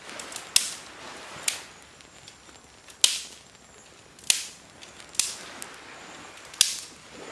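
A series of six sharp cracks or knocks, irregularly spaced about a second apart.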